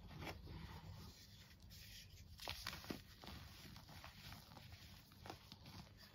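Hands squeezing and crumbling dyed powdered chalk: faint soft crunching with scattered sharper crackles, the loudest a little after two and a half seconds in.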